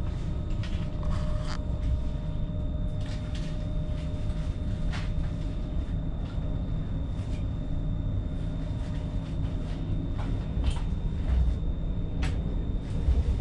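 Cabin running noise of a Westbahn Stadler KISS double-deck electric train in motion: a steady low rumble with a faint steady whine, and scattered light clicks and rattles.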